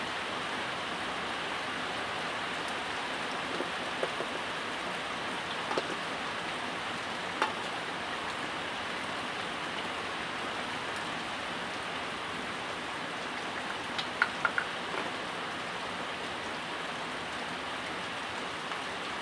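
Steady rain hiss, with a few sharp clicks and taps from small metal throttle-sensor parts being handled and unscrewed. The loudest click comes about seven seconds in, and a quick run of three or four follows near fifteen seconds.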